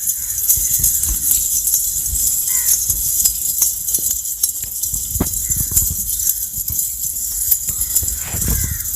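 Goats in a pen: a few faint goat bleats and scattered knocks and shuffling over a steady, high-pitched rattling hiss.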